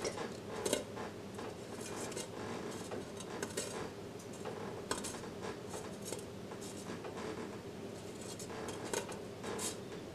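Kitchen tongs clicking and scraping lightly against an air fryer's metal basket as cornmeal fritters are turned over, in scattered soft clicks over a faint steady hum.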